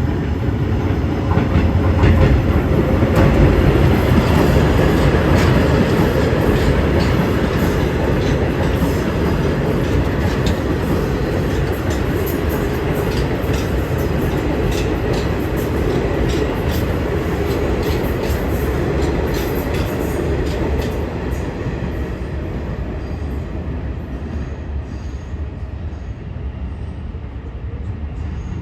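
A New York City Subway train of R160 cars running through the station, loudest a few seconds in and slowly fading toward the end. Rapid clicks of wheels over rail joints run through the middle.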